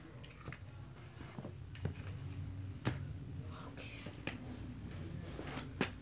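Handling noise from a Hoover Elite upright vacuum: a handful of separate sharp plastic clicks and knocks as its parts are moved and fitted, over a steady low hum.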